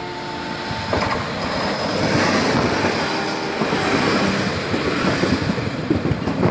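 Taiwan Railway Chu-Kuang express coaches rolling past close by, their steel wheels clattering and clicking on the rails. A brief high squeal comes from the wheels about four seconds in.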